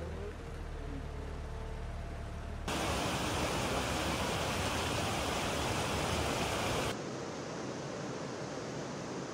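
Outdoor rushing noise of floodwater and wind that changes abruptly twice. A low hum sits under faint noise at first. A loud, bright hiss fills the middle. Near the end a steadier rush of floodwater pours down a street.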